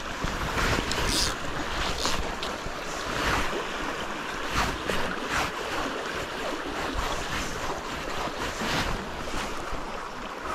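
Shallow stream running over a gravel riffle, a steady rush of water, with wind buffeting the microphone at times.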